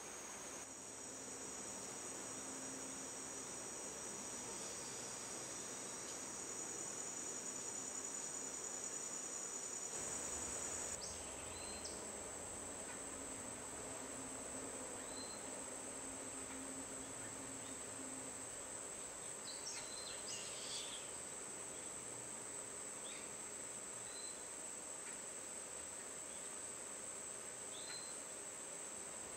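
Steady high-pitched insect chorus, a continuous shrill drone. It is sung on two close pitches for the first third or so, then on a single pitch. A few short faint chirps come in here and there.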